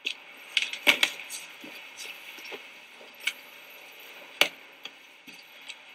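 Footsteps and scattered knocks and taps on hard surfaces, irregular, the loudest about a second in and again a little past four seconds in, over faint room tone.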